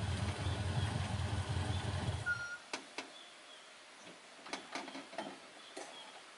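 A classic Toyota utility vehicle's engine running at a low rumble, then cut off suddenly about two and a half seconds in. Several sharp clicks and knocks follow in the quiet.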